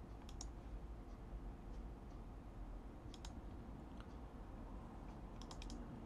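A few faint, sharp clicks from someone working at a computer: a pair about half a second in, a single one in the middle and a quick run of several near the end. Under them is a low, steady hum.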